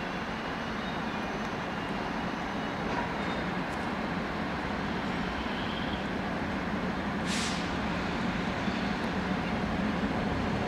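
Train rolling slowly into the station: a steady low rumble growing gradually louder, with a short hiss of air, like an air-brake release, about seven seconds in.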